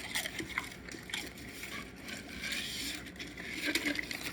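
Dogs eating potato crisps from a hand: scattered crunching, clicking and wet smacking sounds.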